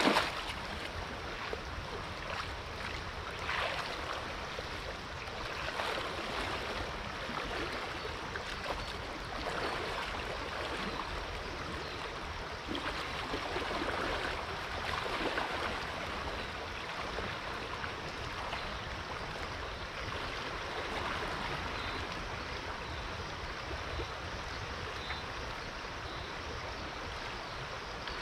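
Steady rush of flowing river water, with faint occasional sloshing of a person wading through it.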